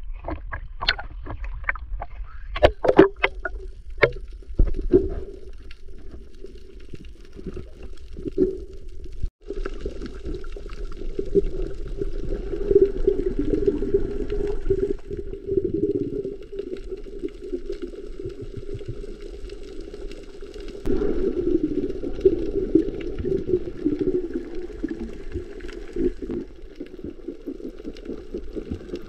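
Water slapping and splashing around a camera at the sea surface, with sharp irregular splashes in the first few seconds. About nine seconds in it changes to muffled underwater noise from a submerged camera: a steady dull rush with faint crackling.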